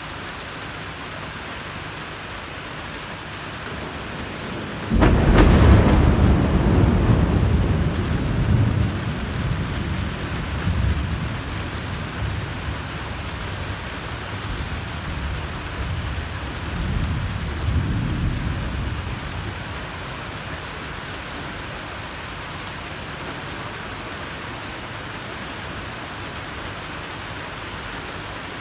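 Steady heavy rain with a close thunderclap: a sudden sharp crack about five seconds in, then a long low rumble that rolls on in swells for about fifteen seconds before dying away under the rain.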